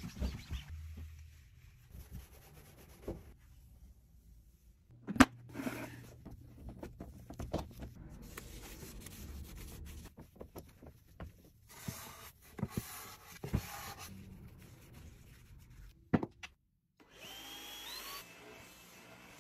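Household cleaning handling sounds: cloth and brush rubbing, with several sharp clicks, the loudest about five seconds in. Near the end, a cordless stick vacuum's motor speeds up with a rising whine as it is switched to its max setting.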